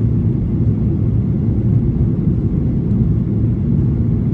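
Steady low roar inside the cabin of a Boeing 737-800 in the climb after take-off, heard from a seat over the wing: its CFM56-7B turbofan engines and the rush of air along the fuselage.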